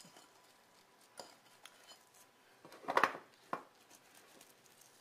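Kitchen handling sounds as a butter-soaked soft pretzel is moved into a glass bowl of cinnamon sugar: a few faint clicks, then about three seconds in a short louder clatter against the glass bowl and a sharp click just after.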